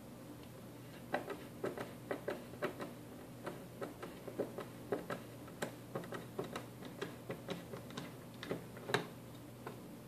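Hand screwdriver clicking as it backs a screw out of a mini PC's metal bottom panel: irregular sharp clicks, about three a second, starting about a second in, the loudest near the end.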